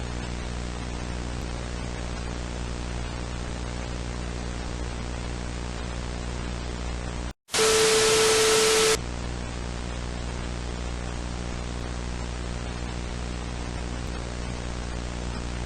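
Steady broadcast static hiss over a low hum. About seven seconds in it cuts out for an instant, then a louder, harsher burst of noise carrying a steady mid-pitched tone lasts about a second and a half before the static resumes.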